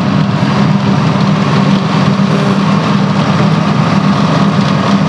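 Truck engine running steadily, heard from inside the cab on the move: a constant low drone with road noise.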